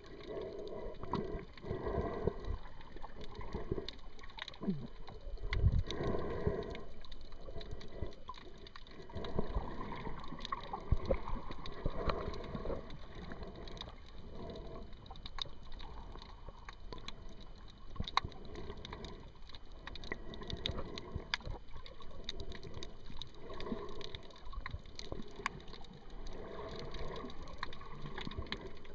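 Muffled underwater water noise picked up by a submerged camera: swirling, gurgling water with many scattered sharp clicks.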